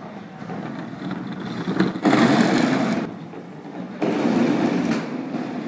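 Hard plastic wheels of a small toddler ride-on toy car rattling as it rolls across the floor. The rattle gets much louder twice: about two seconds in and again about four seconds in.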